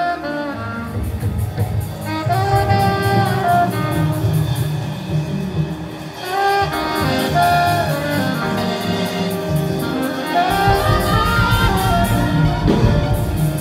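Alto saxophone playing a melody in long, held notes with runs between them, over an accompaniment with a bass line and a steady beat.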